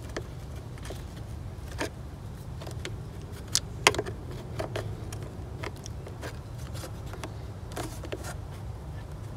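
Flat-head screwdriver prying and levering at the plastic air filter box and intake duct of a BMW engine bay: scattered clicks, scrapes and plastic knocks, the sharpest a pair about three and a half seconds in.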